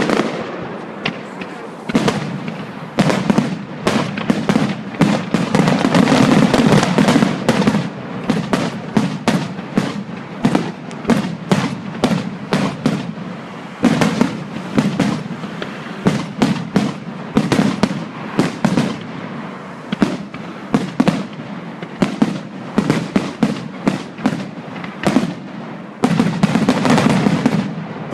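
Fireworks going off in rapid succession: a dense run of sharp bangs and crackles, several a second, with heavier, louder volleys near the start, a few seconds in, and again near the end.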